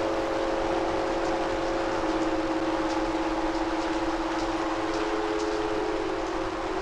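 Ambient soundscape drone: several steady held tones over an even rushing noise, with faint light ticks in the middle.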